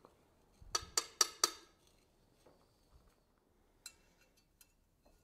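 Hammer striking a hand-forged carbon steel skillet on an anvil: four quick blows in under a second, each ringing like struck steel. A lighter metal clink follows near the end.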